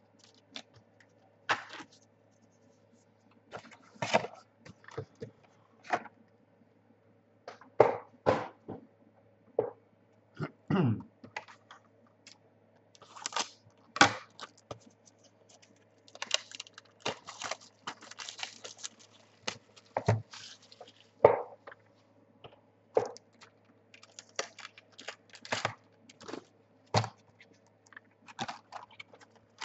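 Trading card packs and cards being handled: irregular crinkles, rustles and light taps of wrappers and cards, with a busier run of crinkling a little past the middle, over a faint steady hum.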